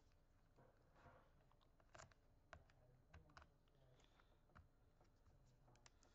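Faint clicks and taps from a replacement battery pack being set down and pressed into place in the open chassis of a Lenovo IdeaPad S340 laptop, about half a dozen over a few seconds, otherwise near silence.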